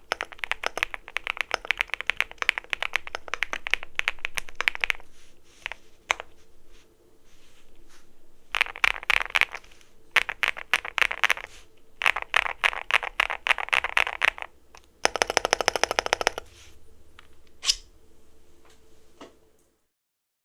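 Typing test on an EPOMAKER x Feker Galaxy80 tenkeyless mechanical keyboard fitted with Adelie keycaps: bursts of fast keystrokes with short pauses, a very rapid run of presses about three-quarters through, and one lone keystroke near the end.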